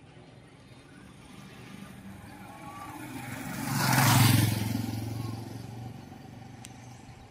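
A motor vehicle passing close by: its engine noise builds over a couple of seconds, is loudest about four seconds in, then fades away.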